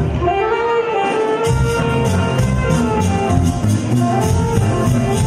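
Live Latin band music: saxophones play the melody over guitar, keyboard and drum kit with a steady dance beat. The drums and percussion drop out briefly at the start and come back in about a second and a half in.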